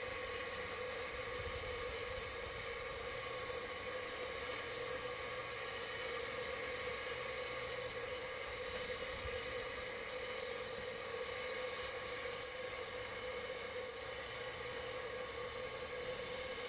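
C12 steam tank locomotive standing with steam up, giving a steady hiss with a steady hum underneath.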